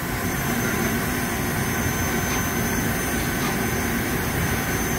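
Traub TNL-26 CNC Swiss-type lathe running a small-drill pecking cycle: a steady machine din with a thin, high, steady whine that sets in just after the start.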